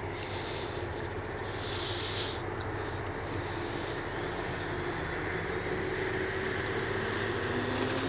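Electric motor and propeller of an E-flite Piper Cherokee RC plane running on a 3S battery, a steady whine over prop noise that grows louder and begins to rise in pitch over the last few seconds as the throttle comes up.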